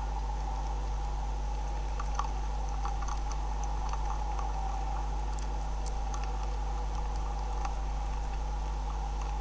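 A beaver chewing and crunching feed kernels: faint, irregular small clicks and crunches over a steady electrical hum from the webcam's audio.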